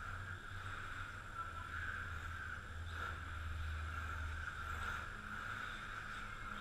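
RC touring cars running laps on an indoor track: a steady whirring hum with a low rumble that swells around the middle.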